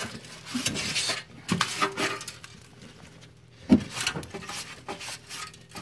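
Dirt being wiped and scraped out of a car's plastic battery box by a gloved hand with a cloth: irregular rubbing and scraping strokes, with one sharp knock about two-thirds through.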